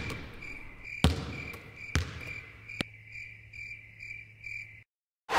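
Cricket chirping in a steady pulse, about two chirps a second, in an otherwise hushed gym. A basketball is bounced three times on the hardwood floor. The sound cuts to dead silence near the end.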